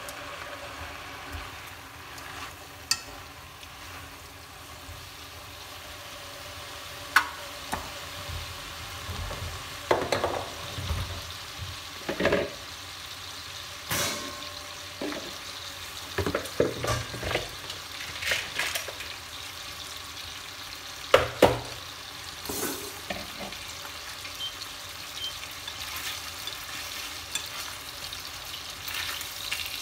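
Sweet potato greens sizzling in a hot stainless steel pot as they stir-fry, a steady hiss with scattered sharp pops and crackles.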